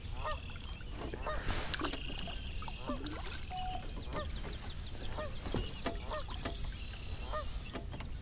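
Geese honking over and over, many short calls following one another, with a few light knocks mixed in.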